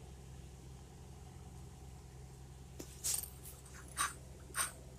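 Soft cake being pushed out of a flexible silicone mould by hand: a few short rustles and scrapes in the last couple of seconds, over a faint steady low hum.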